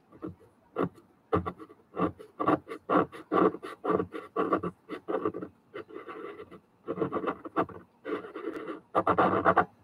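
Pastel pencil scratching on gesso-coated watercolour paper in short strokes, about two a second, then longer scrubbing strokes near the end.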